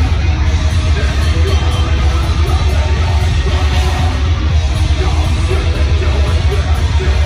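Live heavy metal band playing loud: distorted electric guitars over drums and bass, a dense, unbroken wall of sound with a heavy low end.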